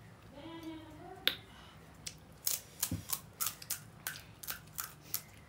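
A crisp, hollow pani puri shell cracking as it is broken open with the fingers: a single sharp crack, then a quick run of small cracks, about four a second, through the second half.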